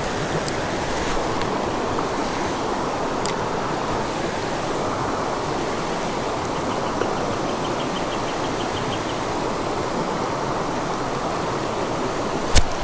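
Shallow creek water rushing steadily over a riffle. In the middle a quick run of faint ticks, about six a second, comes from the Shimano Sedona spinning reel being cranked, and a sharp knock sounds just before the end.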